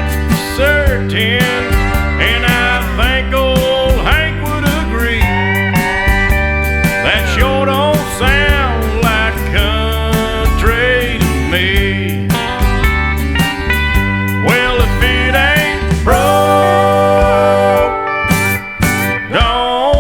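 Country music with a steady beat and gliding steel-guitar lines.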